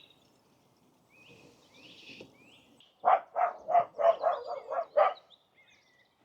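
A dog barking in a quick run of about eight short barks, starting about halfway through, with faint birdsong chirping before it.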